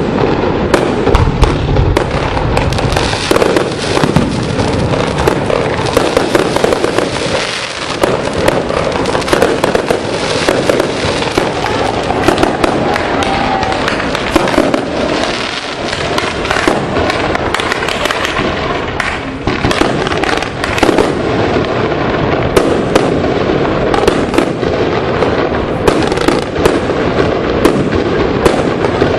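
Fireworks display: a continuous barrage of shell bursts and crackling, many sharp bangs close together with no pause.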